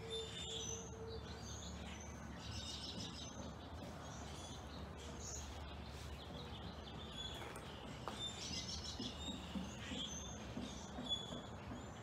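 A flock of blackbirds calling: many short chirps and whistles throughout, with two denser bursts of rapid chatter, about two and a half seconds in and again about eight seconds in, over a low steady background rumble.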